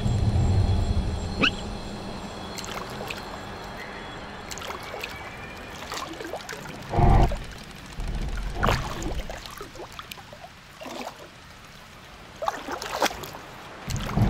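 Water poured and trickling over a small die-cast toy car as its soap foam is rinsed off, with scattered small clicks and a short loud thud about seven seconds in.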